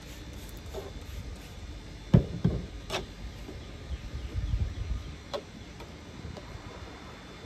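A few sharp knocks and clicks, the loudest about two seconds in, as a plastic spray bottle of bleach is worked and set down on a tabletop, with handling of the wet, rubber-banded fabric.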